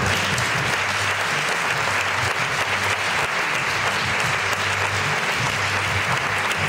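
Audience applauding steadily, with background music underneath.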